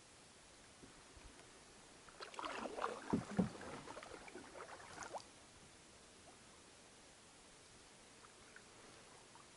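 Canoe paddling: about three seconds of water splashing and swishing from paddle strokes, with two dull knocks in the middle, against a faint steady hiss.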